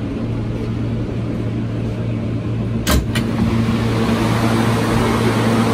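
Siemens-propulsion R160B subway train running, a steady rumble with a low motor hum. Two sharp clacks about three seconds in, a quarter second apart. The hum grows stronger after them.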